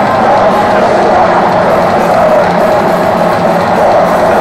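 Black metal band playing live: electric guitars, bass and drums in a loud, dense, unbroken wall of sound.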